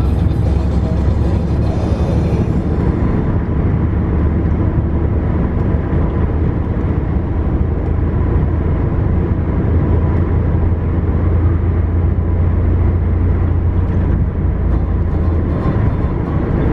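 A vehicle driving steadily along a paved road: a continuous low rumble of engine and tyre noise.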